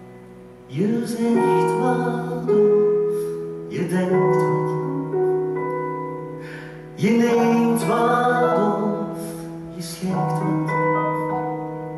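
Piano playing sustained chords, a new chord struck about every three seconds and fading between strikes, accompanying a musical-theatre song.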